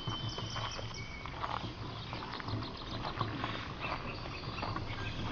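Metal wheelbarrow being pushed over a gravel path: a steady run of small clicks, knocks and rattles from the wheel and tray, over a low rumble.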